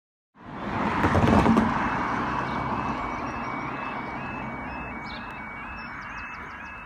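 Level crossing yodalarm (STAHL Yodalarm Y03) sounding a warbling two-tone alarm that steps steadily between two pitches, warning that the barriers are lowering for an approaching train. In the first few seconds a louder rumbling noise sits under it and then fades away.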